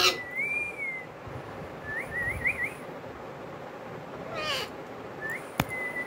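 Indian ringneck parrot giving soft, thin whistles: a gliding whistle at the start, three quick rising chirps about two seconds in, and another short chirp near the end. There is a brief falling call around four and a half seconds in, and one sharp click just before the end.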